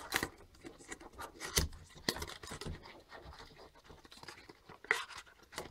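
Small cardboard retail box being opened by hand: irregular scratching and rubbing of the paperboard flaps, with a few sharper clicks scattered through.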